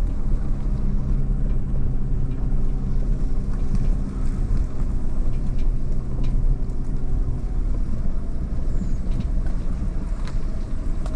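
Fiat Panda 4x4's engine running steadily as the car drives over a rutted, muddy field track, heard from inside the cabin, with a few faint knocks from the car over the bumps.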